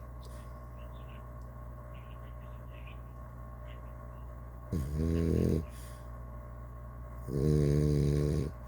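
Snoring: two snores, each about a second long, the first about five seconds in and a louder one about two and a half seconds later. A steady low hum runs underneath.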